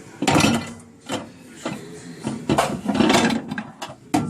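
Scraping, rubbing and knocking of a container being moved out of the microwave by hand, in a few noisy bursts with a sharp knock near the end.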